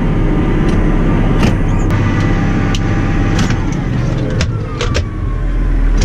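Massey Ferguson 6480 tractor's six-cylinder diesel engine running steadily under way, heard from inside the cab, with scattered sharp clicks and rattles.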